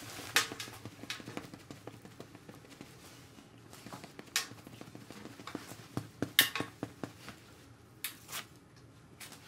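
Large makeup sponge patted against a face, close-miked: about six short pats with quiet gaps between them, several coming in pairs.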